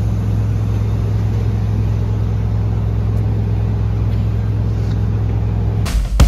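Large parked box truck running at idle close by: a loud, steady, low diesel drone that cuts off at about six seconds with a sharp knock.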